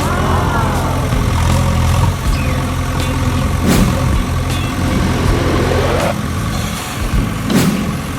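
Vehicle engine idling with a steady low hum, broken by two sharp clicks about four seconds in and again near the end.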